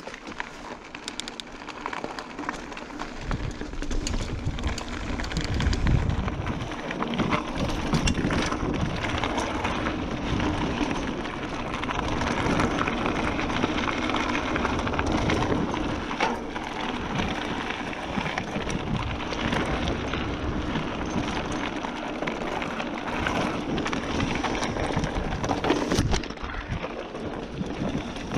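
Giant Fathom 1 29er hardtail mountain bike riding down a trail: the tyres roll and crackle over the surface, with a constant clatter of small clicks and rattles from the bike. The noise builds over the first few seconds and then stays loud and steady.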